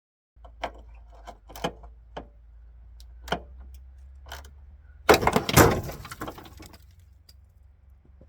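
Single sharp metallic knocks and clanks, about half a dozen over four seconds, then a loud rattling clatter about five seconds in that lasts over a second.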